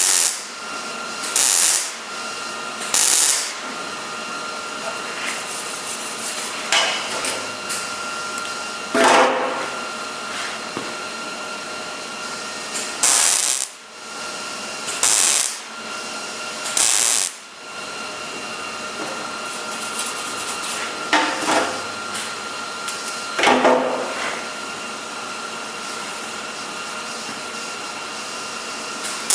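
Sheet-metal welder laying a series of short tack welds on car body panels, each burst lasting about half a second to a second with gaps of a few seconds, over a steady machine hum.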